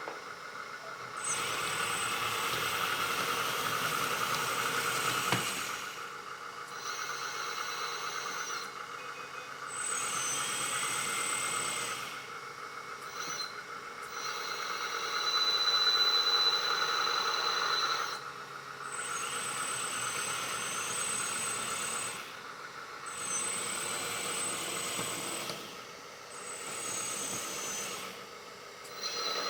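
Hydraulic pump of a 1/14-scale LESU DT60 RC bulldozer whining under load as the hydraulic functions are worked, in stretches of a few seconds that start and stop with short pauses between them, with high steady tones over the whine.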